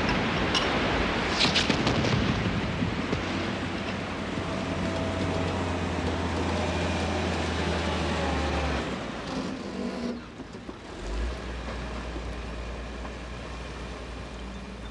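Heavy earth-moving machinery running with a steady low drone under a rush of pouring gravel and dirt, with stones clattering in the first two seconds. The drone stops about nine seconds in and returns lower about two seconds later.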